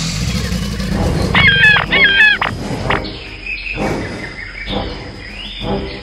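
Two short warbling animal calls about a second and a half in, a dubbed creature sound effect, over low background music.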